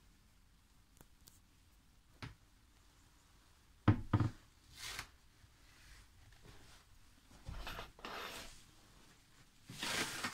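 A wooden cupboard door shut with a pair of knocks a little before four seconds in, then several short bursts of crinkly rustling from plastic protective sheeting on the carpet being stepped on.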